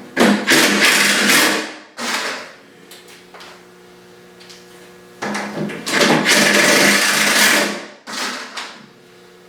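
A power tool runs in two bursts, one of about a second and a half and a longer one of about two and a half seconds, over a steady low hum.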